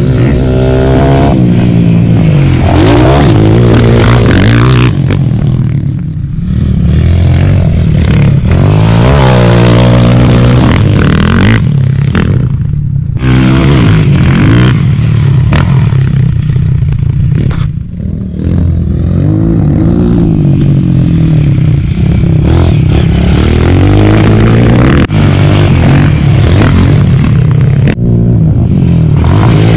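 Dirt bike engine running loud and close, revving up and easing off again and again, its pitch climbing through the gears and dropping back, with short lulls in the throttle about six, thirteen and eighteen seconds in.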